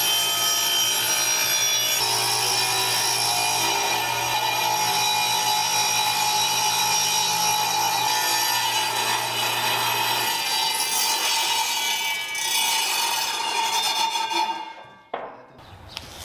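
Table saw with a super-fine plywood blade running and ripping a white laminated bench top lengthwise, a steady loud whine with a cutting rasp. The sound falls away near the end.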